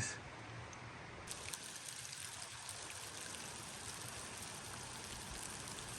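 Faint steady trickle of running water, with a few light scattered drips.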